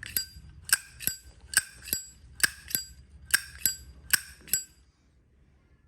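Brushed-chrome brass Zippo 207 lighter's hinged lid snapped open and shut over and over, a dozen sharp metallic clicks that ring briefly, coming roughly in pairs; they stop a little before the end.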